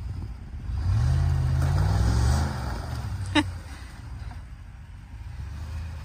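Ram pickup truck's engine revving in deep snow, rising in pitch for a second or two and then easing back to a low steady run, as the stuck truck spins for traction. A short sharp chirp comes about three and a half seconds in.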